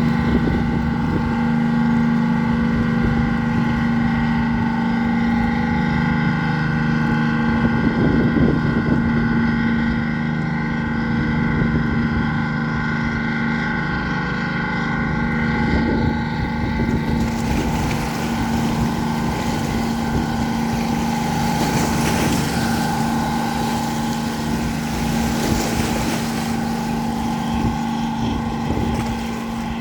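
Passenger launch's engine running steadily under way, a constant drone over a low rumble. About halfway through, a rushing hiss of wind and water joins it.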